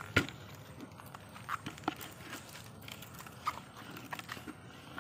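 Scattered clicks, knocks and rustles from moving through riverside brush. The loudest is a sharp knock just after the start, and smaller ones follow irregularly.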